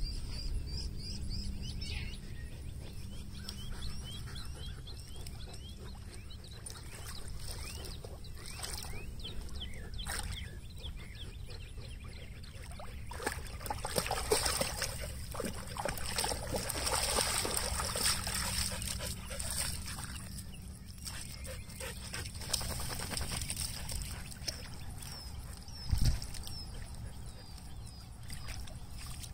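Huskies moving about and splashing in shallow lake water, with short high whines in the first several seconds. A louder stretch of splashing comes in the middle, and a single thump sounds near the end.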